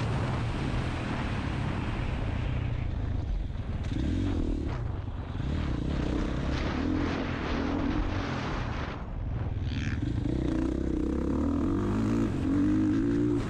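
Motocross dirt bike engine heard from the rider's camera, revving up and down as the throttle is opened and shut through the corners and straights. Wind rushes over the microphone during the first few seconds at speed.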